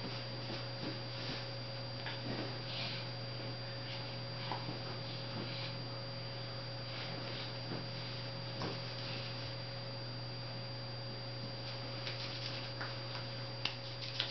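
Steady electrical hum, with faint soft rustling of a towel and baby clothes being handled and a couple of small clicks near the end.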